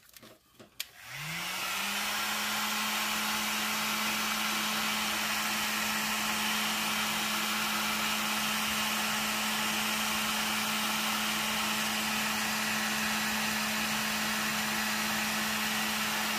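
Heat gun switched on with a click. Its fan motor spins up, rising in pitch, then runs steadily with a loud rush of air while it shrinks heat-shrink tubing over crimped spade terminals.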